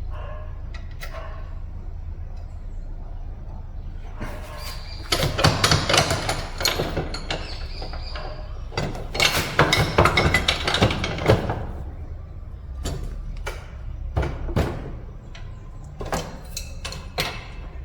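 Metal hand tools and steel parts clattering and scraping in two bursts, then a few sharp clicks, over a steady low hum.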